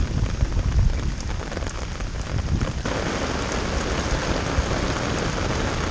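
Thunderstorm rain, under a gusty low rumble; about three seconds in the rain suddenly thickens into a dense, steady downpour.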